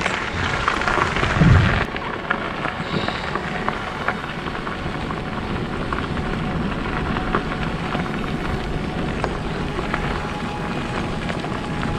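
Bicycle tyres rolling and crunching over a gravel road while riding, a steady noisy rumble, a little louder in the first couple of seconds.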